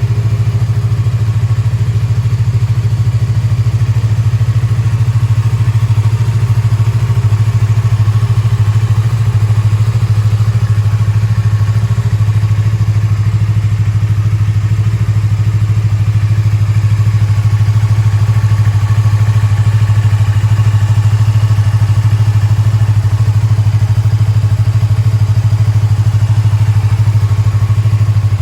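Yamaha YZF-R25's 249 cc parallel-twin engine, breathing through an aftermarket BEAMS silencer, idling steadily at an even, unchanging pitch.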